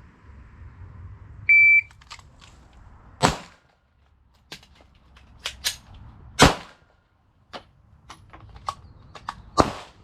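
A shot timer's start beep, then two loud 9mm shots from a Glock 17 pistol about three seconds apart, with fainter clicks and pops between them. Another loud shot comes near the end.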